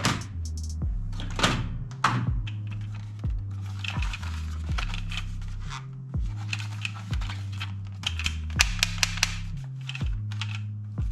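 Toy guns clicking and firing: repeated sharp plastic clicks and short bursts, with a quick run of the loudest clicks a little past eight seconds in, over background music with a stepping bass line.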